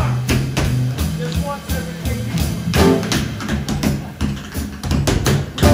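Tap shoes striking a wooden stage floor in quick, uneven rhythms of sharp clicks, over a jazz band's walking upright bass line and drums.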